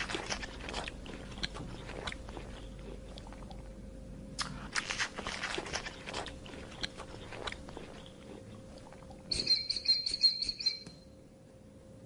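Giraffe browsing: bursts of crackling and crunching from twigs and leaves being stripped and chewed. A short, high chirping call comes in about nine seconds in and lasts a second and a half.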